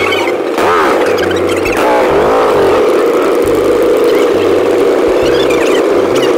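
Motorcycle engines running and revving as the bikes ride up, with two rises and falls in pitch about one and two and a half seconds in. Background music with a bass line plays underneath.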